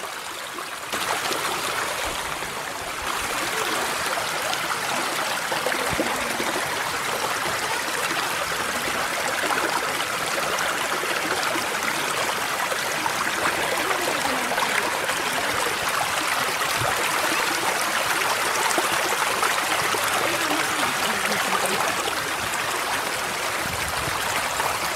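Mountain stream rushing steadily over a rocky bed, a continuous even hiss of water that gets louder about a second in and again around three seconds in.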